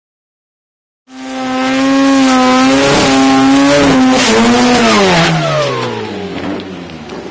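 Turbocharged Mazda 13B rotary engine in a drag car starting loud about a second in and held at high revs for about three seconds, then winding down in pitch.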